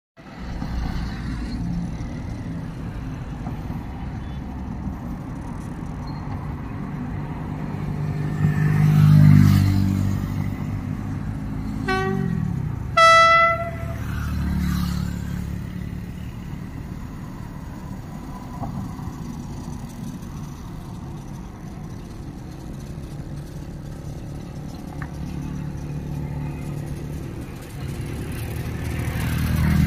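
KTMB Class 29 diesel locomotive running light at low speed, its engine a steady low rumble that swells about a third of the way in and again near the end. Two short horn blasts sound a little before halfway, the second louder and a bit longer.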